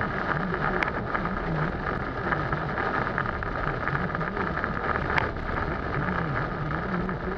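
Heavy rain beating on a moving car, heard from inside the cabin over steady road and engine noise, with a couple of sharp taps of heavier drops or the wipers.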